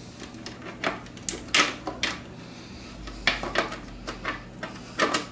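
Clear plastic lid and top tray of a Magic Mill food dehydrator being lifted, turned around and set back on the stack: a series of light, irregular plastic clicks and knocks.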